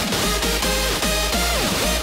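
Electronic dance music: synth notes sliding in pitch over a steady bass beat.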